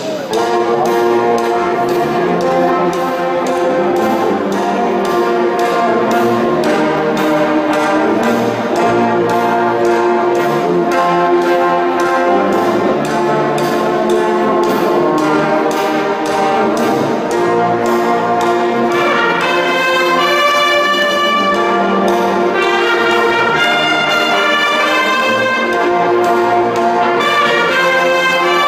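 Youth wind band playing: brass with sousaphones on the bass line over a steady drum beat. Higher brass comes in strongly about two-thirds of the way through.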